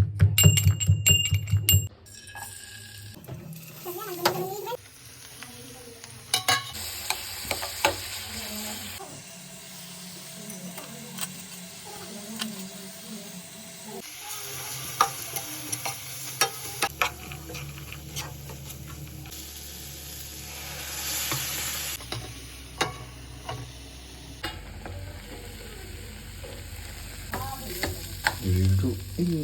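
Food frying and sizzling in a pan while it is stirred, with scattered clicks and scrapes of a utensil; the sound changes abruptly every few seconds. It opens with a loud stretch of ringing tones lasting about two seconds.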